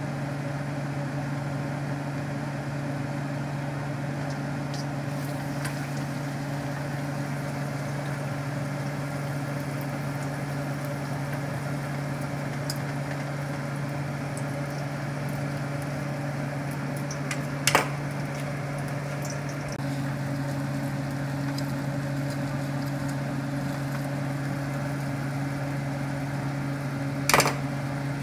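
A steady low electric hum, as from a small motor or appliance running, with two sharp knocks, one a little past halfway and one near the end.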